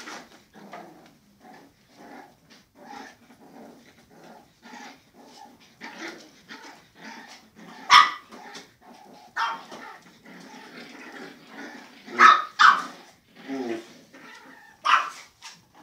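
Japanese Spitz puppies playing tug-of-war over a toy: a steady run of short play growls, about three a second, broken by several sharp, loud yaps.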